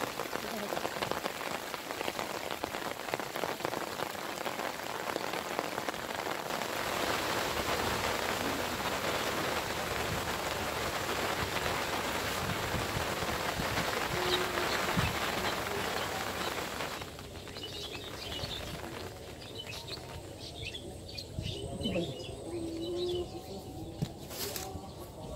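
Steady heavy rain falling on a pond's surface and the vegetation around it. About two-thirds through it cuts off suddenly, leaving a much quieter background with scattered short bird chirps.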